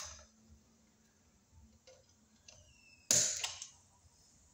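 Handling noise from working a bare copper ground wire close to the microphone: a sharp click, a faint squeak, then a brief loud scraping rustle about three seconds in.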